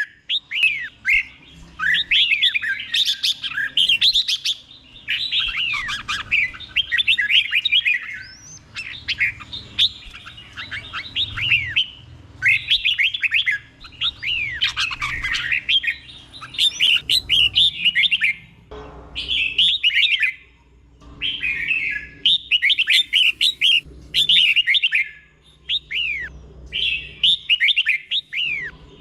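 Red-whiskered bulbul singing its doubled ('berl') song: short phrases of quick, clear whistled notes sliding up and down, one after another with brief pauses between them.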